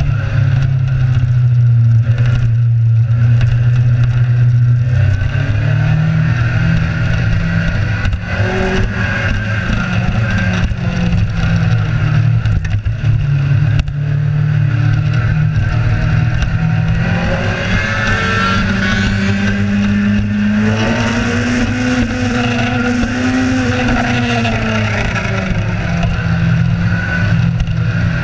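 Kawasaki Z1000's inline-four engine running at a steady riding speed with wind rushing past the microphone. In the second half the engine pitch climbs, holds, then falls again.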